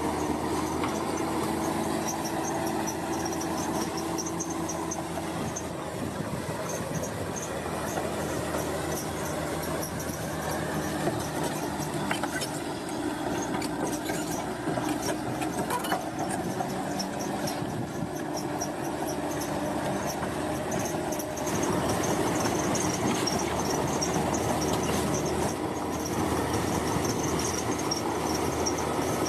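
Heavy construction machinery running steadily, with a continuous engine drone and a high metallic squeal. The sound gets a little louder about three-quarters of the way through.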